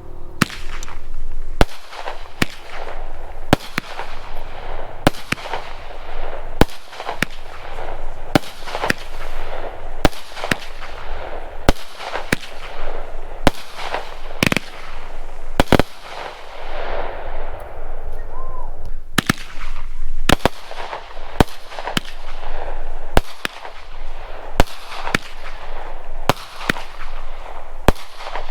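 Mad Ox 200-gram consumer firework cakes firing shot after shot: a steady string of sharp reports about once a second, with a rushing, noisy haze between them.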